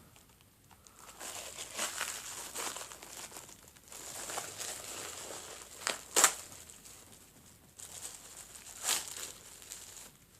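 Plastic packaging crinkling and rustling as it is handled and opened, with a couple of louder sharp crackles about six and nine seconds in.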